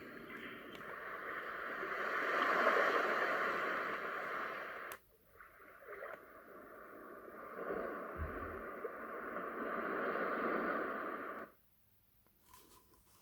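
Roffie white noise machine playing a water-like rushing sound that swells and fades. It cuts off sharply about five seconds in, then a rushing sound builds again and stops abruptly near the end, as the sounds are switched.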